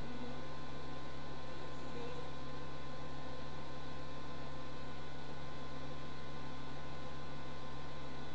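Steady electrical mains hum over a hiss.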